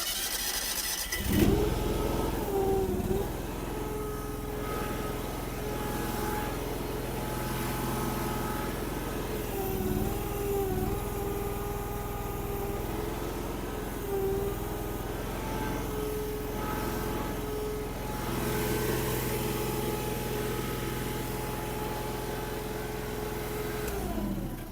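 Derette DRT450 mini skid steer's engine revving up about a second in and running hard under a 750 lb load on the forks, with a whine over it that wavers in pitch. It dies away near the end.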